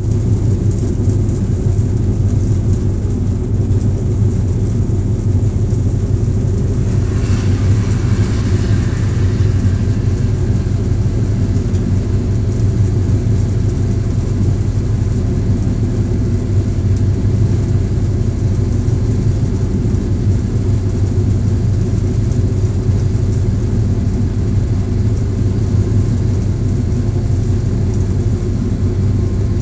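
Diesel locomotive engine running steadily, heard from inside the cab as the train travels, with a deep drone and wheel-and-rail noise. About seven seconds in comes a brief rush of noise as the overtaking train on the next track comes alongside.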